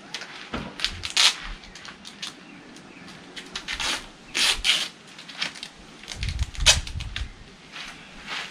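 Adhesive tape pulled off the roll in several short ripping bursts and torn, among clicks and knocks of the canoe's parts being handled.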